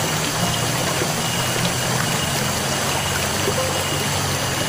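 Steady rush of a small, shallow stream flowing over its bed, with a steady low hum underneath.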